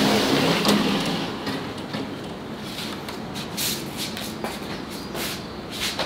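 Wooden bathtub lid boards being handled and slid over the tub, with several short scraping sounds over a steady hiss.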